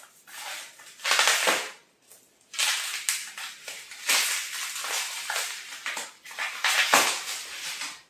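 Plastic bubble-wrap packaging crinkling and crackling as it is pulled off a product by hand, in several rustling bursts, with one sharp snap about seven seconds in.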